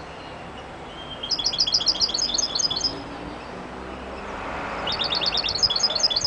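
European goldfinch singing: two phrases of rapid, high twittering notes, the first starting about a second in and the second near the end.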